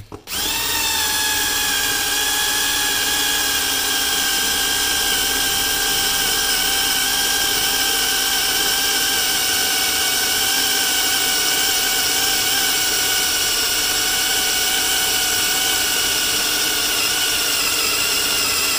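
Porter-Cable 20V cordless drill running under load as a somewhat dull bit cuts into 1/4-inch mild steel. The motor spins up quickly, then holds a steady whine whose pitch sags slowly over the long run, wavering near the end.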